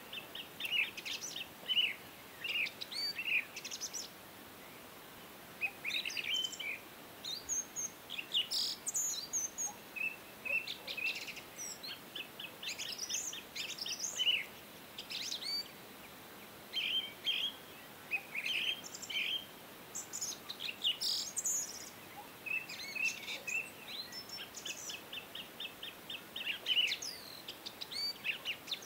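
Small birds chirping and trilling, with many short high calls and quick rapid trills following one another, broken by brief pauses.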